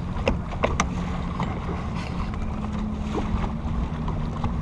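Boat engine idling with a steady low hum, wind buffeting the microphone, and a few sharp clicks within the first second.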